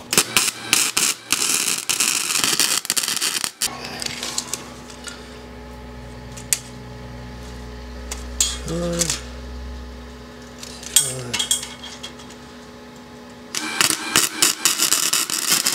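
Weldclass MST175 MIG welder tack-welding steel square tubing: the arc crackles for about three and a half seconds, stops, and a steady low hum is left until the crackling arc strikes again near the end.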